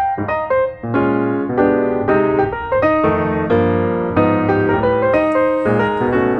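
Background piano music: a steady run of struck piano notes and chords.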